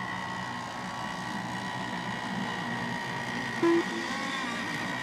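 Radio-controlled racing boat engines running steadily out on the course: a high, even whine over a low drone. About three and a half seconds in come two short beeps.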